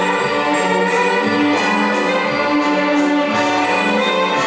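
Orchestral waltz music playing steadily, the bass note changing about once a second.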